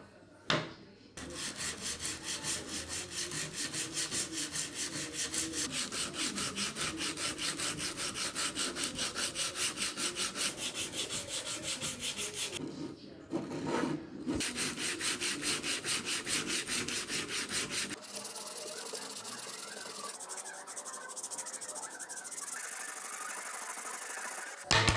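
Sandpaper rubbed by hand back and forth over a worn wooden saw handle: quick, even scraping strokes of about four a second. They break off briefly about halfway, then turn steadier and softer in the last third.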